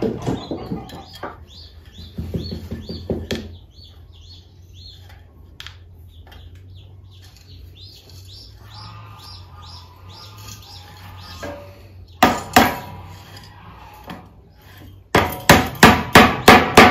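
Hammer nailing together a wooden beehive frame: a couple of sharp knocks, then a quick run of about seven hammer blows near the end. Before the hammering, wood pieces being handled, with birds chirping faintly.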